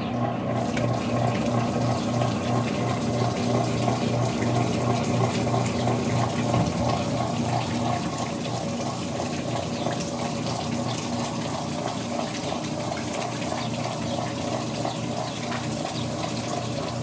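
Whirlpool Direct Drive top-load washing machine draining: a steady motor hum with water churning and gurgling through the drain pump as the tub empties.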